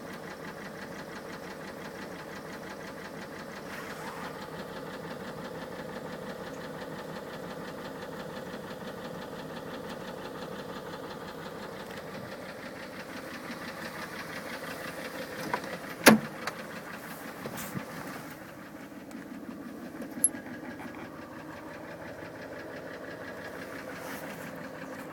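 Car engine running with a fast, steady knock: the strange knock the owner is recording. Two sharp clicks cut through it, a loud one about two-thirds of the way in and a smaller one a few seconds later.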